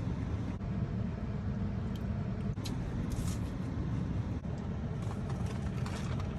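Steady low rumble of background noise, with a few faint, brief high-pitched sounds scattered through it.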